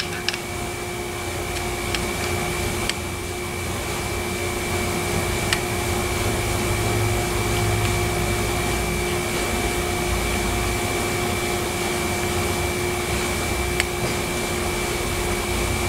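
Steady machine hum with a constant whine held throughout, from a running fan or blower motor. A few light metallic clicks come through as the timing chains and sprockets are handled.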